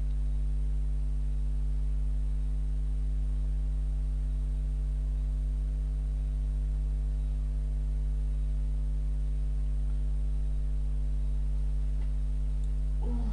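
Steady low electrical mains hum with a stack of higher overtones, unchanging at a moderate level.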